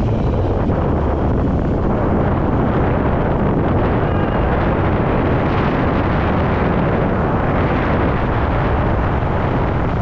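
Steady wind rush on the microphone over the noise of a moving vehicle, with no clear breaks or single events.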